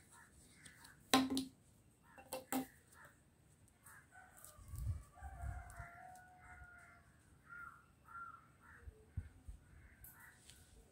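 Two sharp knocks a little over a second apart near the start, then chickens calling for several seconds.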